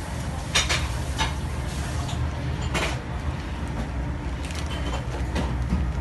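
Light clicks and clatters of small hard parts being handled by hand, a handful of them with the sharpest near the middle, over a steady low hum.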